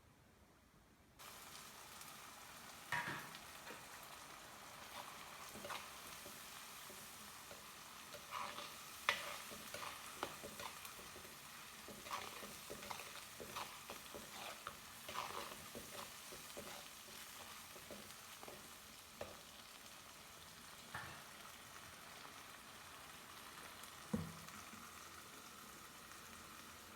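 Food frying in hot oil in a pan, a steady sizzle that starts about a second in, with the clicks and scrapes of a spoon stirring against the pan, the sharpest near the middle and near the end.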